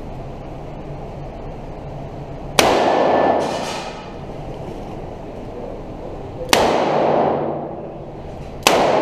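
Three revolver shots from a stainless revolver, the second about four seconds after the first and the third about two seconds later. Each is a sharp crack with a loud echo that fades over about a second in the enclosed indoor range, over a steady low hum.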